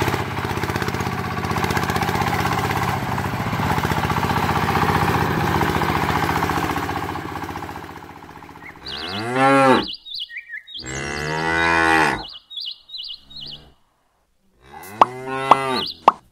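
Small electric motor of a toy tractor running steadily for about eight seconds. It stops, and cattle moo three times, each moo long and drawn out.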